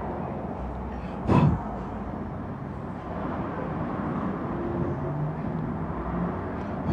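Steady low background noise with one brief loud knock about a second and a half in.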